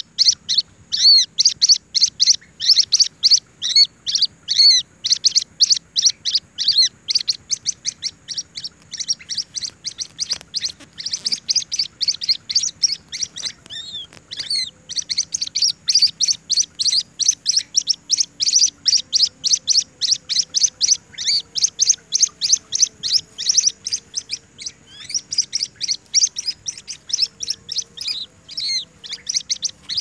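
A karapuak chick calling with rapid, high-pitched chirps, about two or three a second, kept up without a break.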